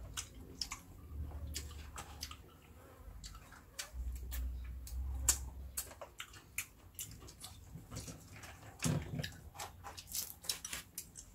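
Lychees being eaten up close: irregular small cracks and crackles of the thin shells being peeled by hand, with chewing and mouth sounds. A low rumble comes in twice underneath.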